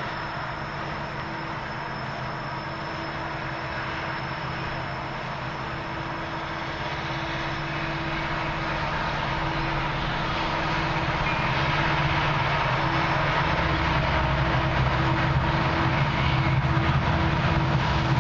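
Diesel locomotives of a long freight train approaching, their engines a steady low drone that grows steadily louder.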